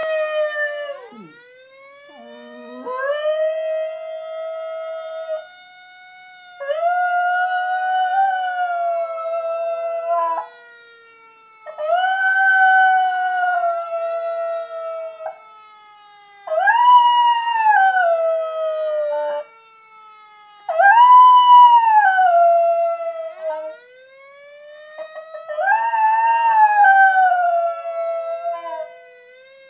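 Schnauzer howling along with a fire siren: six long howls of several seconds each, loudest above the siren. The siren's wail falls slowly in pitch, then winds back up near the end.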